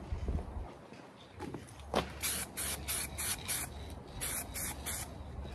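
Aerosol spray-paint can spraying a top coat onto an engine valve cover in short squirts. After a single click about two seconds in, five quick bursts follow, then three more after a brief pause.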